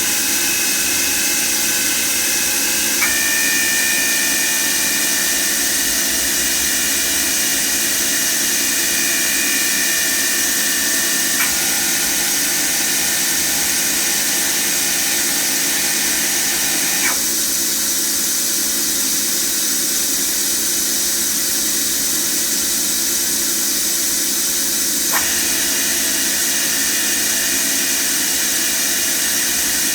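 FANUC Robodrill α-T21iFLa 30-taper vertical machining center spindle running steadily, a whine over a constant hiss. The whine jumps to a new pitch four times, each with a small click, as the spindle is stepped from one speed to the next.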